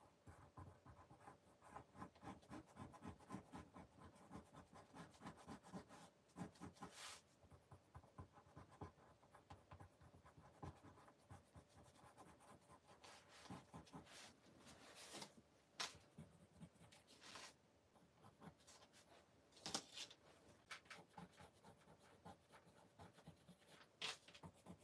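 Faint, quick scratching of a coloured pencil shading on paper, stroke after stroke, with a few sharper taps and clicks of the tool here and there.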